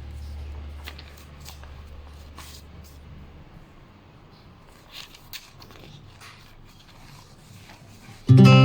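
Quiet room sound with scattered faint clicks and light taps, under a low hum that fades out after about three seconds. An acoustic guitar chord from the background music comes in loudly near the end.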